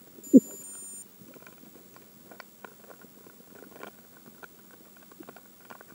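Underwater: a short two-part electronic beep of high steady tones, under a second long, near the start, with a brief low thump at the same moment. Faint scattered clicks and ticks follow.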